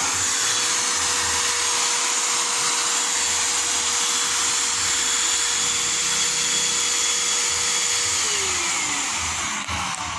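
Handheld car vacuum cleaner, modified to blow air with its sponge filter removed, running with a steady whine and a rush of air. About eight seconds in the motor winds down, its whine falling in pitch.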